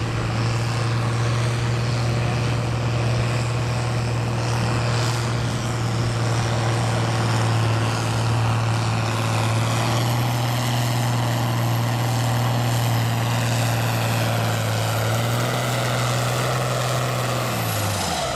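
Diesel farm tractor engine running flat out under full load as it drags a weight-transfer pulling sled, a loud steady drone that rises slightly in pitch twice along the run. The drone drops off near the end as the pull finishes and the throttle comes back.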